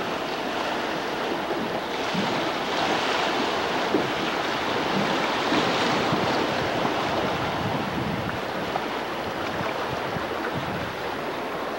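Fast river water rushing through a riffle of standing-wave rollers alongside a drift boat: a steady hiss that swells louder for a few seconds in the middle.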